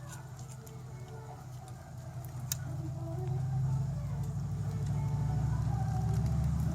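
Low, steady engine rumble of a motor vehicle, growing louder from about two seconds in. A single sharp click sounds partway through.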